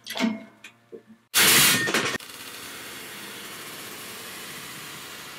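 Differential pieces loaded in a hydraulic shop press let go with a loud bang about a second and a half in, as the parts burst apart under pressure. A steady hiss follows.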